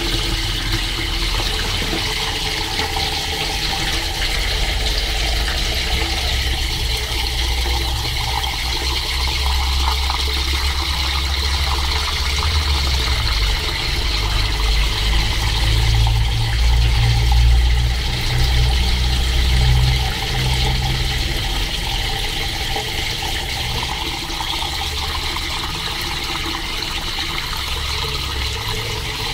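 Cold tap water running steadily into a small metal saucepan of hard-boiled eggs in a stainless steel sink, splashing and overflowing, to cool the eggs straight after boiling. A low rumble swells in the middle.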